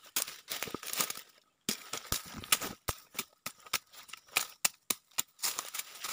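Dry brush crackling and twigs snapping close up, heard as a run of irregular sharp clicks and crackles, with a brief pause about a second and a half in.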